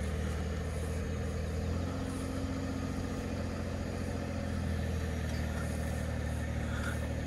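A 2021 Ford F-150's twin-turbo V6 EcoBoost engine runs steadily under heavy load, straining to tow a loaded semi truck and trailer of about 65,000 lb on a stretch rope. Its tyres spin in loose dirt.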